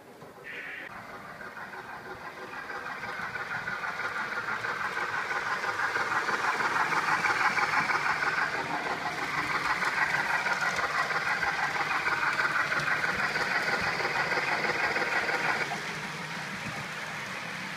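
Synthesised steam-locomotive sound from a Zimo 645R sound decoder in an OO-gauge LNER A4 model, played through the model's small speaker. It grows louder as the engine approaches, holds steady, and drops sharply near the end.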